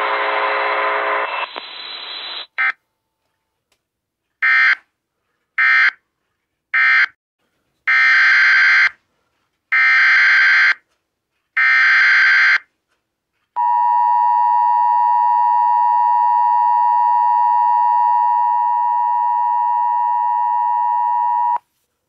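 Emergency Alert System broadcast audio: the spoken warning ends about two seconds in, then come three short EAS/SAME data bursts (the end-of-message code) and three longer, roughly one-second SAME header bursts of screeching digital data, separated by silence. Then the EAS two-tone attention signal (853 and 960 Hz together) sounds steadily for about eight seconds and cuts off abruptly.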